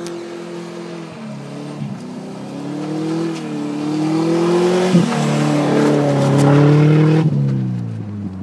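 1998 Subaru Outback's flat-four engine revving hard while the car slides sideways through snow, its pitch rising and falling with the throttle, over a hiss of snow spraying off the tyres. It grows louder toward the middle as the car comes close, then the hiss stops and the revs drop near the end.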